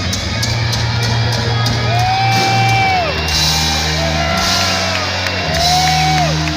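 Heavy metal band playing live: long held lead notes that bend up and down at their ends over sustained bass notes, with shouts mixed in.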